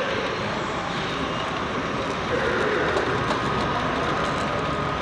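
Steady background din of a busy hall with a model train running along the layout; a thin steady whine comes in about three and a half seconds in.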